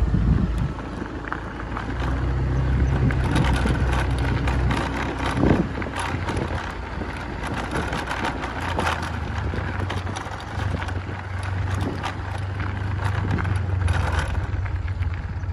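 Motorbike engine running steadily at low speed while riding, with rushing wind noise and scattered knocks and rattles over a rough dirt track.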